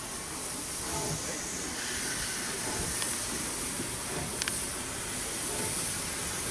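Steam locomotives led by class 01 No. 01 066 hissing steam steadily, with one short click about four and a half seconds in.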